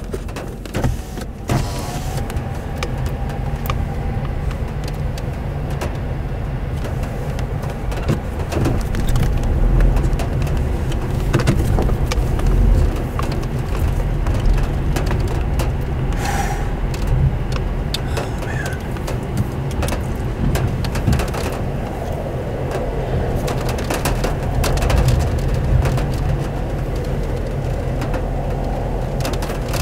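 A large wedge tornado's low, continuous roar, with many brief crackles over it.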